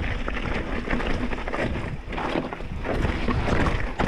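Mountain bike riding down a rocky, loose trail: tyres crunching and skittering over rock and dirt, with frequent sharp clacks and rattles from the bike, over a low rumble of wind buffeting the microphone.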